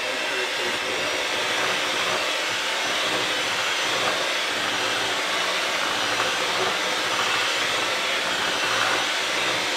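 Electric mixer running steadily, whipping a pot of mashed potatoes.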